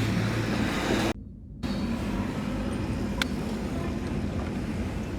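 Steady vehicle noise, broken by a half-second gap about a second in, with one sharp click a little past the middle.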